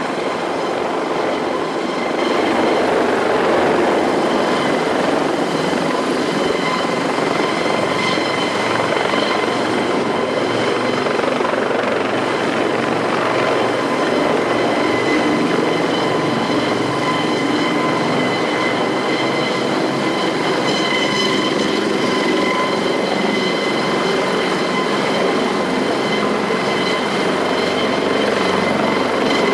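Twin-turboshaft AS365 Dauphin helicopter running: a steady rushing noise with a high turbine whine, getting louder about two seconds in and then holding steady.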